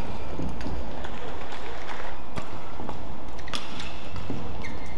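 Badminton rally: several sharp racket strikes on the shuttlecock, about a second apart, over steady arena noise, with a short shoe squeak on the court floor near the end.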